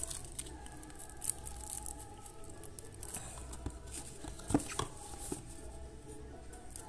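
Quiet rustling and light taps of hands handling a paper cigarette pack and its cardboard carton, with a few sharper clicks scattered through.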